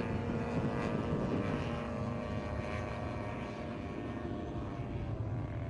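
The 50cc two-stroke gasoline engine and propeller of a radio-controlled Yak 54 aerobatic model plane, running steadily in flight with an even drone that eases off a little over the second half.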